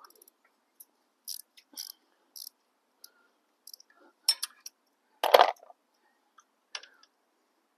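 Irregular metallic clicks and clinks of hand tools and loosened exhaust fasteners being handled, about eight in all, the loudest a little over five seconds in.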